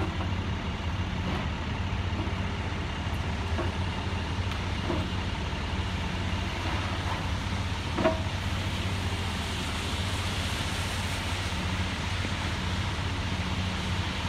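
Diesel engine of a Liebherr 954 long-reach demolition excavator running with a steady low drone. Scattered knocks from the grapple working on the building, the sharpest about eight seconds in.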